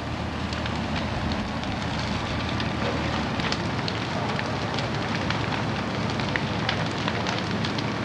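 Old dry wooden sawmill building fully ablaze: a steady rush of flames with frequent sharp crackles and pops of burning timber.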